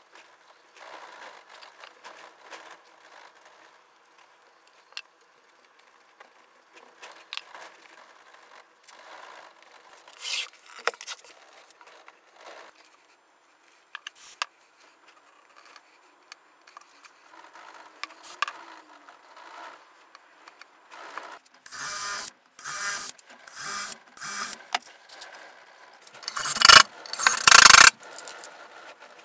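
Faint rubbing and handling noises, then from a little past the middle a run of loud scraping strokes, each about half a second long, as wood is worked by hand.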